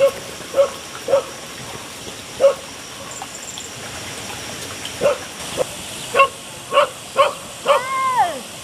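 A dog barking in a series of short yaps, coming faster in the second half, then giving one longer whining call that rises and falls near the end.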